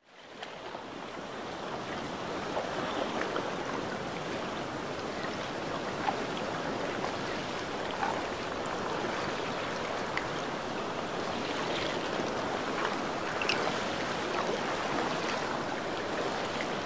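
Ocean waves: a steady wash of water lapping and sloshing, with small splashes here and there. It fades in over the first second or two.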